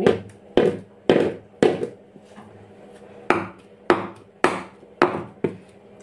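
Metal cake tins full of batter knocked down on a stone countertop, to settle the batter and drive out air bubbles: three knocks about half a second apart, a pause, then five more, each with a short metallic ring.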